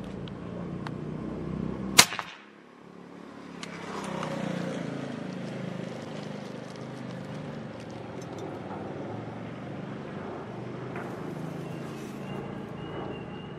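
A single shot from a 4.5 mm (.177) PCP air rifle about two seconds in: one sharp, loud crack.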